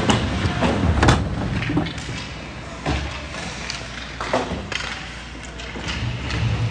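Irregular thuds and knocks, about half a dozen over several seconds, echoing in a large hall.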